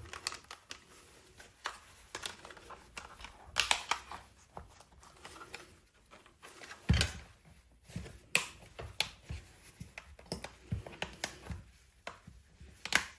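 Plastic housing of a Meta Quest 3 headset being pressed back together, its clips clicking into place, with irregular small plastic snaps and handling clicks. A duller, heavier knock comes about seven seconds in.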